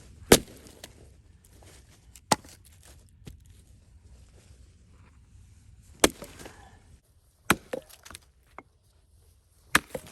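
Firewood being split by hand with an axe: about six sharp chopping strikes into the wood, irregularly spaced, a couple of them close together near the end.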